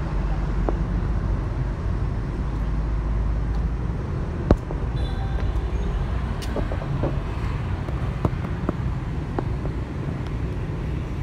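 Steady low vehicle rumble, with a few sharp clicks, the loudest about four and a half seconds in.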